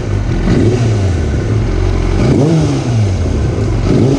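Yamaha R6 inline-four engine revved in three quick throttle blips, the middle one highest, each dropping straight back to idle. It runs smoothly, with no misfire, on a new coil pack for cylinder four.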